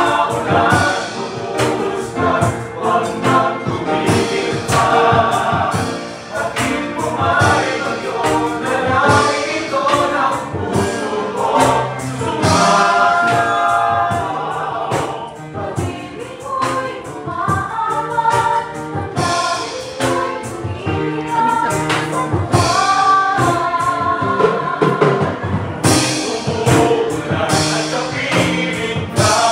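Restaurant cooks and waiters singing together in chorus, a group song with music and a beat behind the voices.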